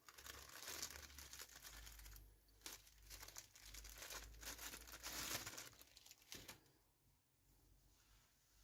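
Packaging crinkling and tearing as it is handled and opened, a dense irregular crackle that stops about two seconds before the end.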